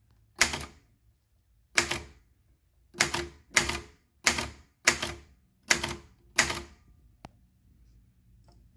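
Royal-branded typewriter with a transparent plastic case typing slowly: eight separate keystrokes at uneven spacing, then one faint click.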